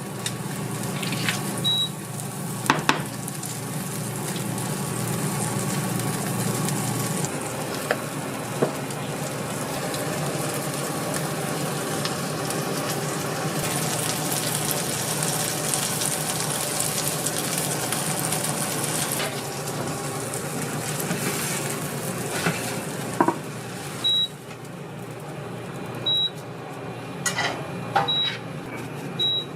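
Egg fried rice sizzling in a hot pan, with metal utensils knocking and scraping against it now and then, over a steady low hum. A few short high beeps sound near the start and again in the last few seconds.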